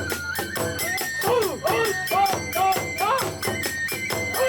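Kagura festival music: drum and small hand cymbals keeping a quick, steady beat, with a melodic line of held notes and sliding phrases over it.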